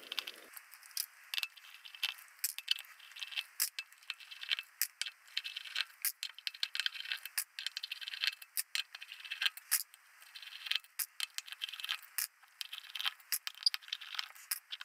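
Small screws being backed out of a metal cover plate with a hand screwdriver and set down, giving a steady run of light metallic clicks, scrapes and clinks.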